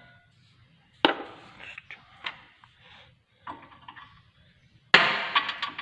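Metal tool knocks from a steel socket being fitted onto a suspension bolt: one sharp knock about a second in, a few light clicks, then a louder short clatter near the end.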